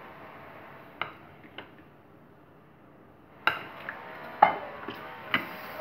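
Light knocks and clinks of a stainless-steel mixer-grinder jar and its lid being handled and set down: two about a second in, then a quicker run of about five more from about halfway. No grinder motor is running.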